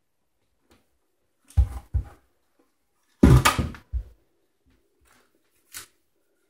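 Knocks and scuffs from a plastic bucket of self-leveling underlayment being tipped out and set down on the floor, in two short clusters, the louder about three seconds in. A short scrape comes near the end.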